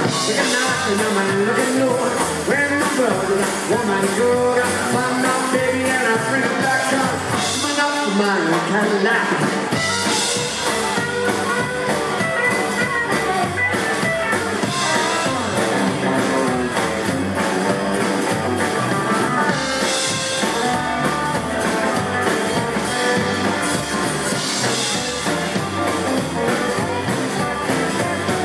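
Live rockabilly band playing a rock and roll number on electric guitar, acoustic guitar, upright double bass and drum kit.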